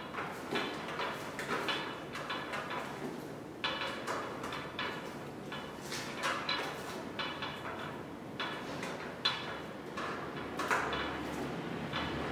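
Irregular clicks and short ticking runs from a road bike as it rocks back and forth in a track stand on a concrete floor. A low rumble builds near the end.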